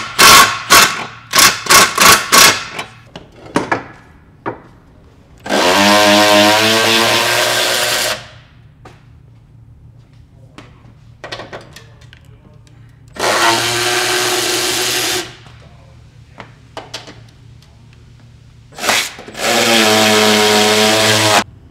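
Cordless impact wrench driving bolts: about seven short trigger bursts in quick succession at the start, then three longer runs of about two and a half seconds each, several seconds apart.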